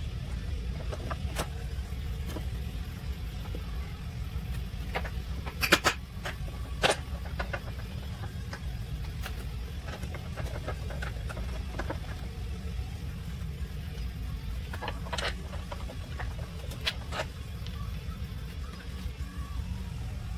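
Scattered metallic clinks and knocks of hand tools and a lower control arm being fitted to the subframe, with two sharper knocks about six and seven seconds in, over a steady low rumble.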